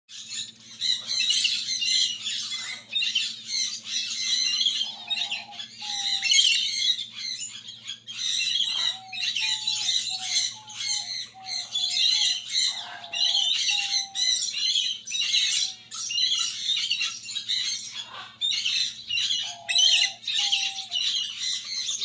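A flock of small aviary finches, including zebra finches, chattering constantly. Short, nasal, beeping calls break out in clusters several times over it. A faint steady low hum runs underneath.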